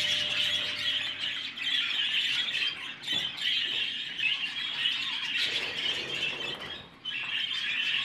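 A flock of English budgerigars chattering all at once, a dense high-pitched din of overlapping calls that dips briefly about seven seconds in.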